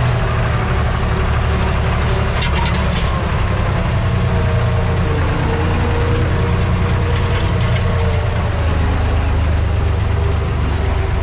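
Farm tractor's diesel engine running steadily under load while pulling a disc harrow, heard from inside the cab, with a few light rattles about two to three seconds in.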